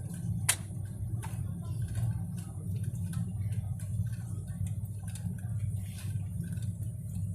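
Steady low drone of an airliner cabin in flight, with scattered light clicks and one sharper click about half a second in.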